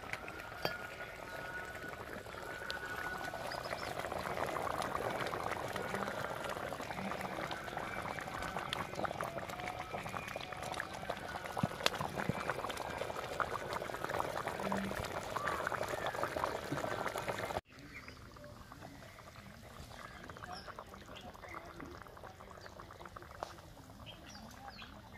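Fish curry boiling in a clay pot over a wood fire, a dense bubbling and popping. It stops abruptly about 17 seconds in, leaving a much fainter background.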